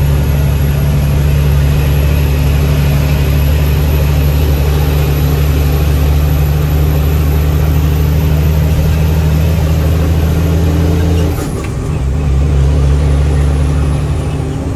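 International 9300 heavy truck's diesel engine running steadily under load. The engine note breaks off briefly about two-thirds through, comes back changed, and dips once more near the end.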